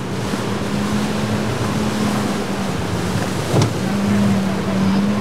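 Outboard motorboat engine running steadily over rushing water and wind noise, with one brief sharp knock about three and a half seconds in.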